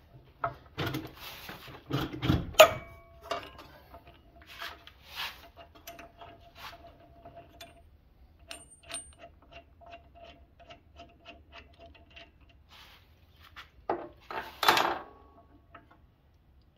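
Scattered metallic clicks and clinks of an Allen key working the arbor bolt and the blade flange of an Evolution R355CPS 14-inch steel chop saw, with the blade locked for removal. A sharp knock comes about two and a half seconds in, and a short burst of clatter comes near the end.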